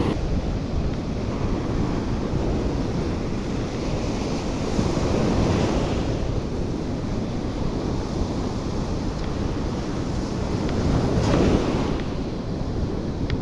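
Sea surf breaking and washing up a sandy beach, with wind buffeting the microphone. The waves swell and fall, and one breaks loudest near the end.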